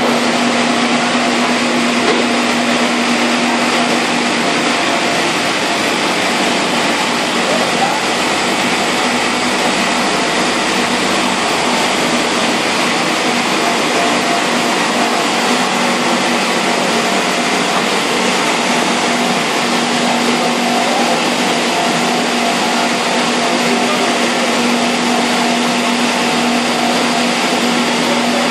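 Commercial salad and vegetable washer running: water churning and bubbling in its stainless-steel tank over a steady machine hum.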